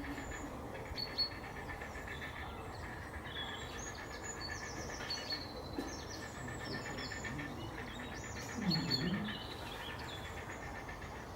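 Several wild birds singing and chirping over an almost continuous fast-pulsed trill, with a brief louder, lower call about nine seconds in.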